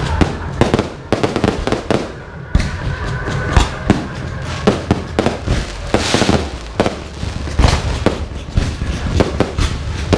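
Aerial fireworks display: a dense, irregular run of shells and comets going off with sharp bangs several times a second, with a longer hissing crackle about six seconds in.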